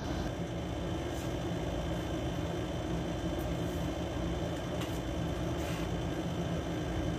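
A steady mechanical hum, even in level throughout, with a few faint light clicks scattered through it.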